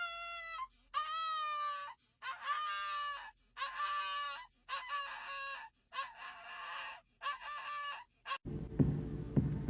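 An animal calling over and over: about seven short pitched calls, each under a second, with the pitch bending up and down. A different, noisier sound cuts in near the end.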